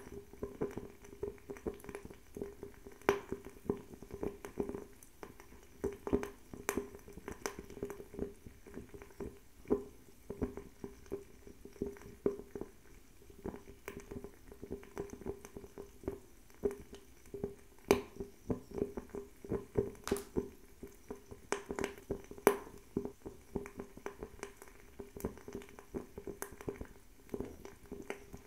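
Höfats Spin 90 bio-ethanol table fireplace burning, with irregular sharp crackles and pops, several loud ones, over a steady fluttering flame sound.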